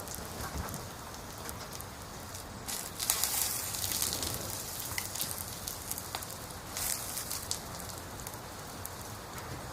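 Wood fire burning: a steady hiss with many sharp crackles and pops, swelling louder about three seconds in and again near seven seconds.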